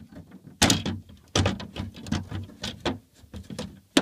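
Plastic lamp-access cover on the back of a Samsung DLP TV being worked loose by hand: irregular bursts of plastic scraping and knocking as it is pulled free.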